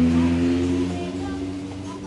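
A motor vehicle's engine hum that swells and then fades away over a couple of seconds, as a vehicle goes by.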